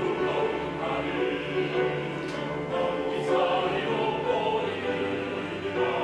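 Mixed amateur choir singing a Korean song in parts with grand piano accompaniment, held chords with audible sibilant consonants in a reverberant hall.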